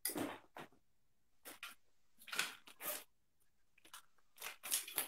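Handling noise close to a phone's microphone: short rustling, scraping bursts, about six of them, as earphones are fetched and put on. The sound cuts to silence between the bursts.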